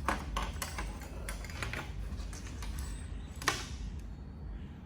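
Light clicks and knocks of small manicure tools being handled and set into a plastic toolbox compartment: a few scattered taps, with a sharper click about three and a half seconds in.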